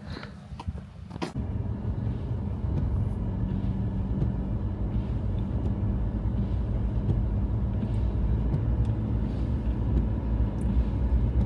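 A sharp click about a second in, then a Toyota Hilux 4WD on the move: a steady low rumble of engine and road noise.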